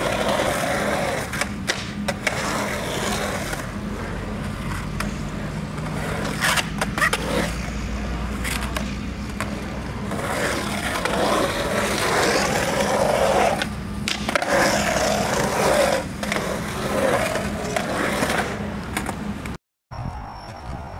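Skateboard wheels rolling around a concrete bowl: a continuous rolling rumble that swells and fades as the rider carves, broken by several sharp clacks of the board. It cuts off abruptly near the end.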